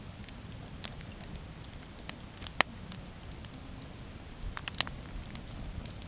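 Wood campfire burning, the logs crackling and popping at irregular moments: one sharp loud pop about two and a half seconds in and a quick run of pops a little before the end.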